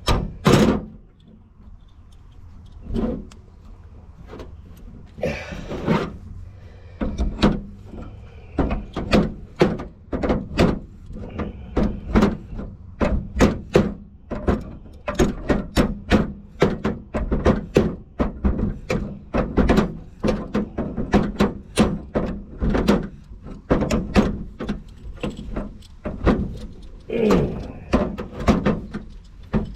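Many quick, irregular metal clicks and knocks, often two or three a second, from hand tools working threaded pipe fittings on a backflow preventer assembly, with a short scraping sound about five seconds in.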